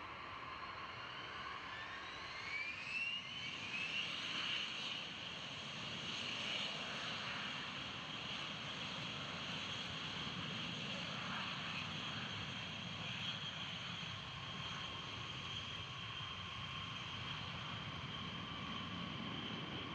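B-52H Stratofortress's TF33 turbofan jet engines running with a high turbine whine that rises in pitch over the first few seconds, then holds steady over a continuous rushing jet noise.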